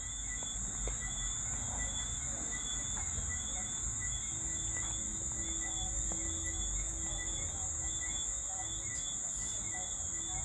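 Steady high-pitched background whine with a fainter, rapidly pulsing trill beneath it and a low hum. A few faint clicks sound through it.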